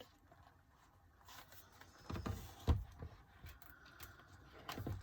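Pages of an album photobook being turned and handled: a few soft paper rustles with light thumps about two seconds in and again near the end.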